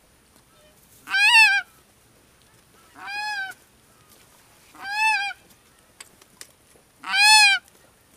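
Hunter's goose call blown in single loud honks, one about every two seconds, four in all, calling to an incoming flock of geese.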